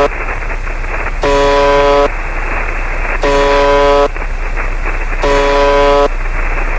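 Emergency alert attention signal: a buzzy, horn-like tone sounding three times, each about 0.8 s long and two seconds apart, over a constant static hiss.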